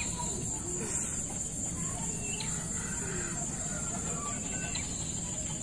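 Outdoor ambience: a steady high-pitched insect drone with faint, scattered bird calls.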